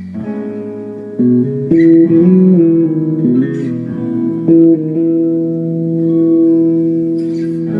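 Guitar-led live band music with no singing: sustained, overlapping guitar notes change every half second or so, then one long note is held through the second half.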